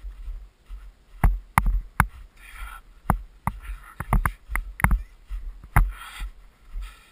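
Footsteps on a snowy trail: irregular crunches and sharp clicks, several a second, over a low rumble on the microphone.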